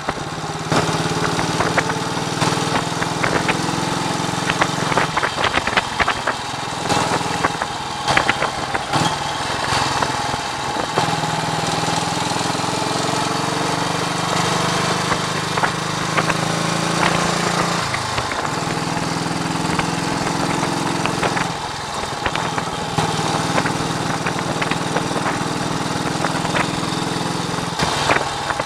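1939 AJS Model 22's 250 cc single-cylinder four-stroke engine running on the road, its note holding steady for stretches and dipping briefly several times. Wind buffets the microphone throughout.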